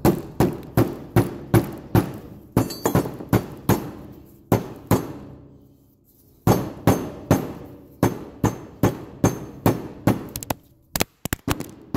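Rubber mallet tapping a wheel seal down into a brake hub to seat it flush: a run of quick, even strikes about two to three a second, a brief pause partway through, then more strikes. A few sharp knocks near the end.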